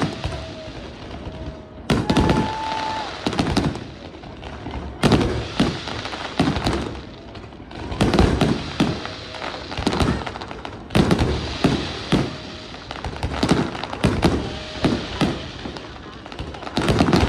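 Fireworks display: rapid clusters of sharp bangs and crackles, a new volley every second or two, with a few brief high whistling tones among them.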